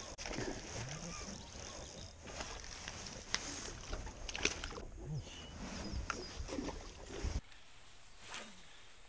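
Knocks and rustling from handling gear in a small aluminium boat, over a low rumble. After a sudden cut, a quick swish of a fishing rod being cast.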